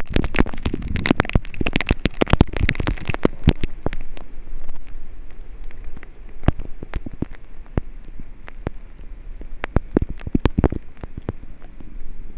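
Hard rain falling, with many sharp drop hits close by. The hits come thickest in the first few seconds and then thin out.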